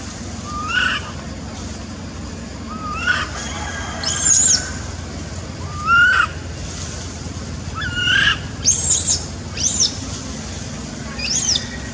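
Baby macaque giving short rising cries, one every two to three seconds, with quicker, higher chirps between them over a steady low background rumble.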